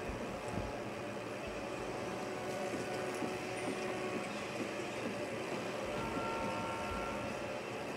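Steady rumbling noise of a train running on rails, with faint steady tones drifting in near the middle and toward the end.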